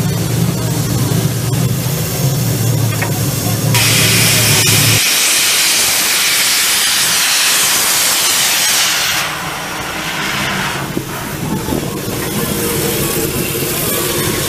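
Steam locomotive 310.433 venting steam: a loud hiss starts about four seconds in, sounds for about five seconds, then dies down. A steady low hum runs underneath until about five seconds in, then stops abruptly.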